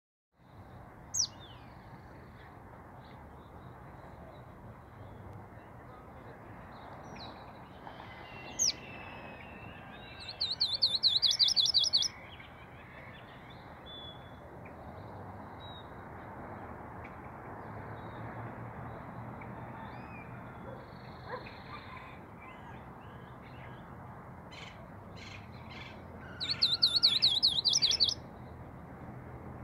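Collarejo seedeater singing: two short songs, each a fast high trill under two seconds long, about ten seconds in and again near the end, with a few single chirps in between over a steady background hiss.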